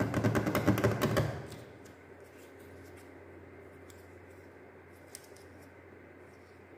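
A loud burst of rapid clicking and rattling for just over a second, then faint, scattered clicks of small plastic fan parts being handled, the pink plastic fan blade of a mini USB fan turned in the hands.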